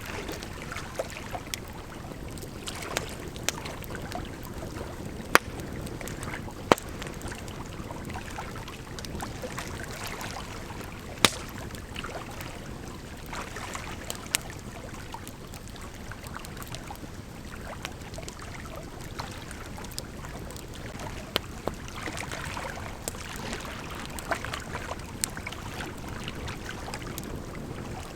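Wood campfire crackling, with scattered sharp pops (the loudest about five, seven and eleven seconds in), over the steady rush of a gently flowing river.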